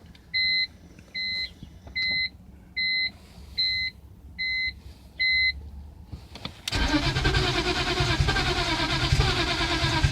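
A car's dashboard warning chime beeping about eight times, a little faster than once a second. About seven seconds in, the starter cranks the engine, which stutters but does not start. This is a crank-no-start with fuel pressure present, which the owner wonders may be a failing crankshaft position sensor.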